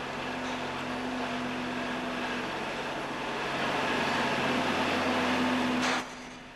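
Steady machine noise with a low hum that grows a little louder midway, then cuts off suddenly near the end.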